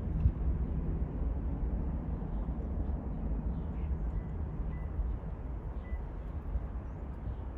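Distant low rumble of a four-engine Boeing 747-400 climbing out after takeoff, steady and slowly fading as it moves away.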